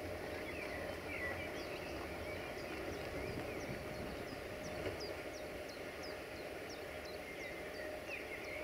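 Birds singing in the open: a string of short, high, falling chirps repeated every half second or so, with a few lower gliding notes. Underneath is a steady faint hum and background noise.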